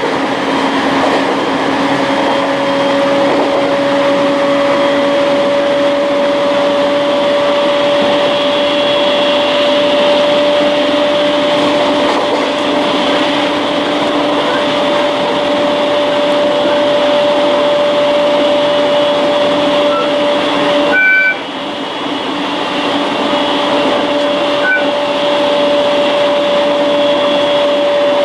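Electric train running at steady speed, heard from inside the carriage: continuous running noise with a steady whine held at one pitch. The noise dips briefly about three quarters of the way through.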